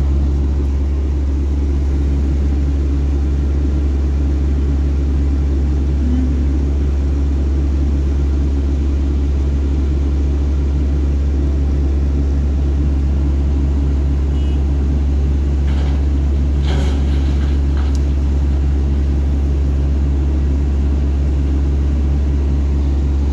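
Truck's diesel engine idling steadily, heard from inside the cab as a constant low hum. A few faint clicks come a little over two-thirds of the way through.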